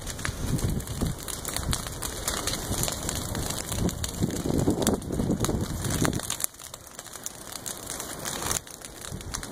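Dry prairie grass burning: a dense crackle of many small pops over low rushing gusts of flame and wind. It drops quieter about six seconds in.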